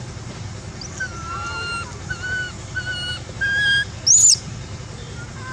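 Newborn long-tailed macaque crying: a run of about five short, even-pitched calls, then one loud, high squeal about four seconds in.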